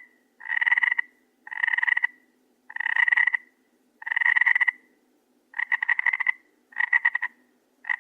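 A frog croaking over and over, about one call a second, around seven calls in all. The last few calls break into a fast, pulsed rattle.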